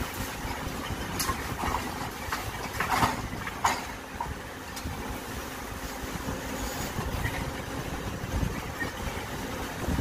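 CAT 426F backhoe loader's diesel engine running steadily while the backhoe dumps a bucket of soil and rubble into a steel dump-truck bed. A run of clattering knocks comes between about one and four seconds in, the loudest near the middle of that run.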